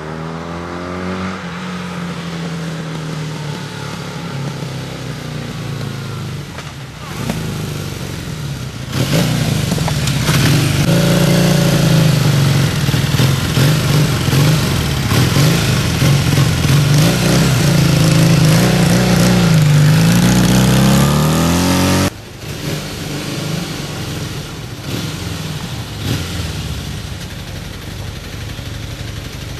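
Motorcycle engine running and revving as the bike rides, its pitch rising and falling with throttle and gear changes; it is loudest in the middle stretch. It cuts abruptly to a quieter, steadier engine near idle.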